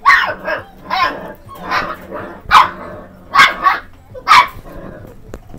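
Pharaoh Hound puppy barking: about seven short, loud barks in a row, half a second to a second apart.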